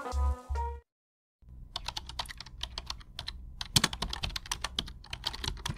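Computer keyboard typing: quick, irregular key clicks over a low hum, starting after a short silence about a second and a half in. The last notes of background music fade out just before the silence.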